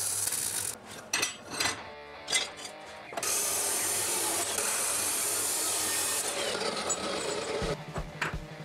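A welding arc crackling briefly, then a few sharp metal knocks, then an abrasive cut-off saw grinding steadily through 50 × 5 mm steel flat bar for about four seconds. Music with a steady beat comes in near the end.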